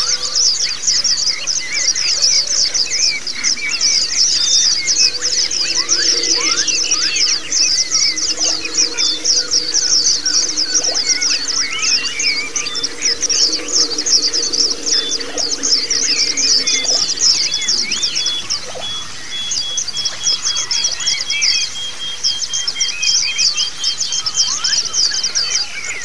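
Pleci (white-eye) singing in a dense, unbroken stream of very fast high notes, the rolling 'ngerol' style used in recordings to train caged pleci, with other birds' scattered chirps and short slurred calls beneath.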